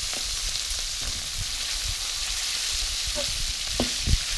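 Fish sizzling as it fries in oil in a metal wok, a steady hiss. Near the end, a few sharp clinks of a fork and spatula against the wok as the fish is pulled apart.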